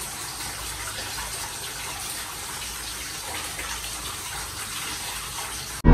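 Water running steadily from a tap into a bath or basin, a constant gushing that cuts off suddenly near the end.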